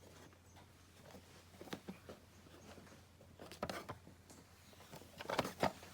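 Packaging and a boxed model being handled: soft rustling with scattered clicks and light knocks, and two sharper clicks near the end.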